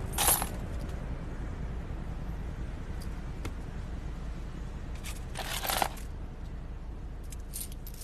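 Coins jingling and clinking as a hand rummages through loose change in a car's centre console. There are two louder rattles, one just after the start and one near six seconds in, with a few small clicks between, over a low steady hum.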